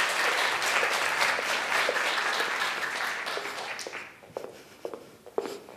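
Audience applause that fades out about four seconds in, followed by a few sharp footsteps of high-heeled shoes on a wooden stage.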